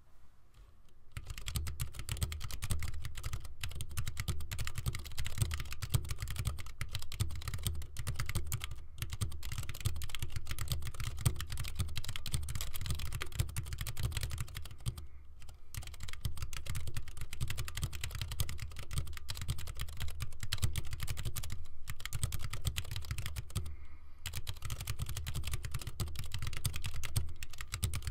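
Continuous fast typing on an Iris split mechanical keyboard with Alps SKCM brown switches and One Per Desk keycaps: a dense run of key clicks with a few brief pauses.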